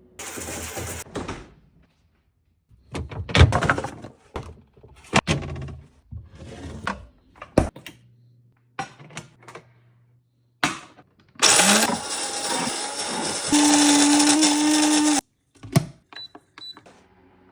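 A run of short, abruptly cut kitchen sounds: clattering and sharp knocks, then a small electric kitchen appliance's motor spinning up and running loudly for about four seconds before it cuts off.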